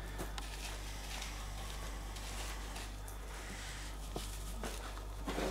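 Faint rustling of gritty bonsai soil and light knocks as hands press the soil into a small black plastic pot and lift it, with a louder scuffle near the end. A steady low hum runs underneath.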